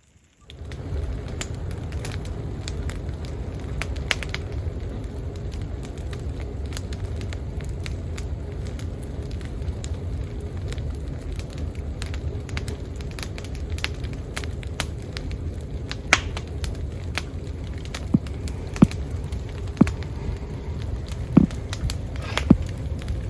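Wood campfire crackling, setting in about half a second in: a steady low rumble with sharp pops throughout and a few louder pops in the second half.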